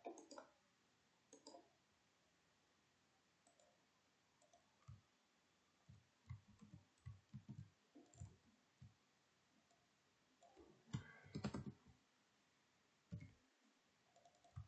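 Faint computer keyboard keystrokes, scattered and irregular, with a quicker run of keys about eleven seconds in.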